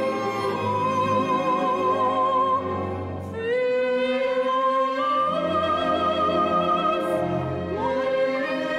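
Soprano singing an operetta phrase with vibrato over an orchestra. She breaks off briefly about a third of the way in, then starts a new phrase that rises and settles on a higher held note.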